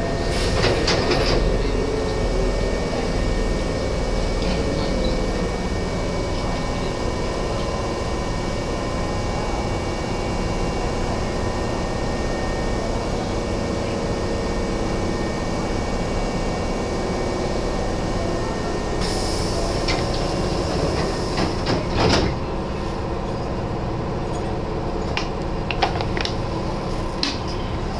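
Nose Electric Railway 1700 series electric train running along the line, a steady rumble heard from the front of the car. About two-thirds of the way through there is a short hiss followed by a sharp knock, and a few light clicks come near the end.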